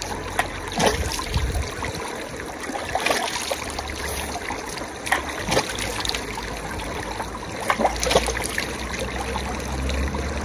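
Small mountain stream of snowmelt trickling over stones, with brief irregular splashes.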